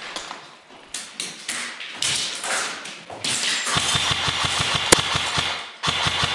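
Scattered taps and knocks, then an airsoft electric gun firing two long full-auto bursts at about seven shots a second, with a steady high whine running under each burst and one sharp crack in the middle of the first.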